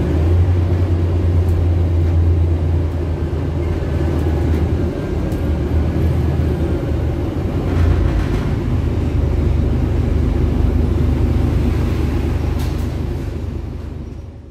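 Scania K250 UB city bus's Scania OC09 101 five-cylinder inline engine running under way, heard inside the passenger cabin as a steady deep drone that fades out near the end.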